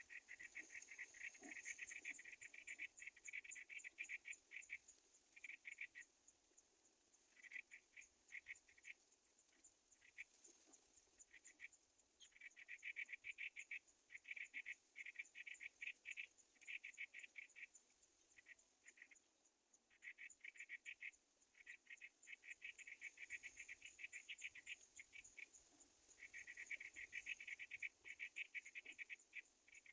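Chorus of calling animals, such as frogs or insects, trilling: rapid pulsed trills come in bursts of one to several seconds, over a fainter, higher trill that runs on without a break.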